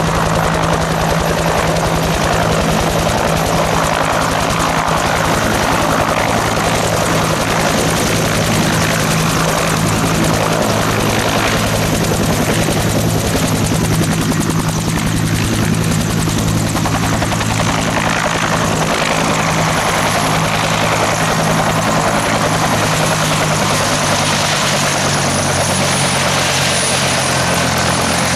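Bell UH-1H Iroquois 'Huey' helicopter running steadily: the rapid beat of its two-bladed main rotor over the whine of its Lycoming T53 turboshaft engine.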